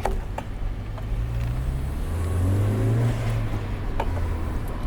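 Honda Civic engine breathing through a newly fitted aftermarket exhaust, heard from inside the car as it drives. It accelerates, the low drone rising in pitch and loudness to a peak about three seconds in, then easing off. The exhaust note is not too loud.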